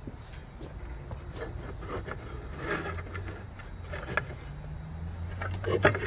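Steel clamp bar and gloved hands knocking and scraping against a freshly sleeved Kawasaki 900 jet ski cylinder and the wooden deck as the sleeve is clamped down, with scattered clicks and a sharp metal knock near the end. A low hum runs underneath from about halfway.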